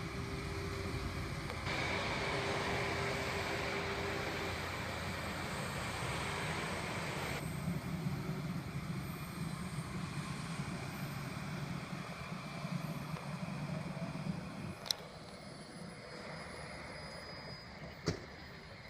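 A passenger train rolling past on the rails: a steady rumble and roar that eases off after about fifteen seconds as it moves away, with a couple of sharp clicks near the end.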